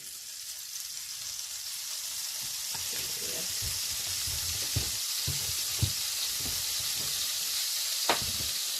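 Floured Dover sole frying in a little hot oil in a pan, a steady sizzle that builds slightly, with a few sharp clicks of utensil or pan.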